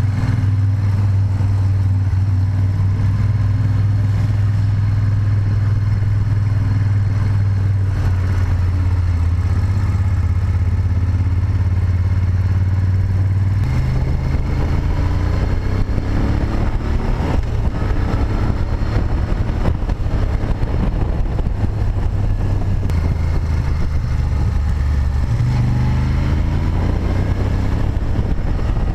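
Moto Guzzi Griso 8V SE's air-cooled V-twin engine, heard from onboard, running steadily at low revs. About halfway it steps up and the revs rise as the bike accelerates, and they rise again near the end.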